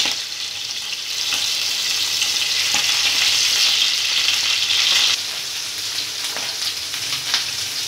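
Pieces of pressure-cooked mutton sizzling as they shallow-fry in hot oil in a non-stick frying pan. The sizzle is louder for the first five seconds, then drops suddenly, with a few light knocks of meat or tongs against the pan.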